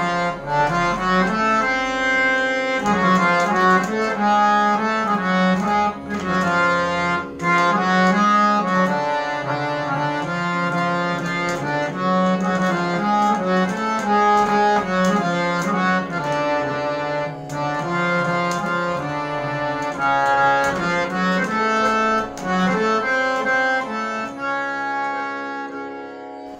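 Harmonium playing a slow melodic line in raag Bhairav, one held reedy note moving step by step to the next, fading out near the end.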